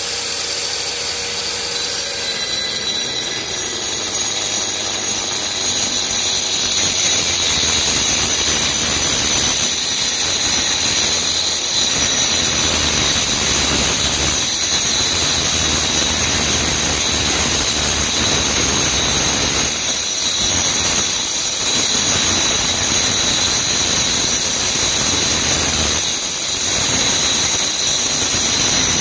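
Angle grinder fitted with a diamond core bit cutting a round hole in ceramic floor tile: a steady high whine over a grinding rasp, dipping briefly a few times.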